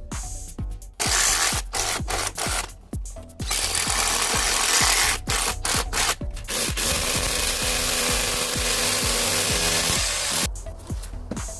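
Power tool running in several stretches with short pauses, loud and hissy, over background music with a steady beat.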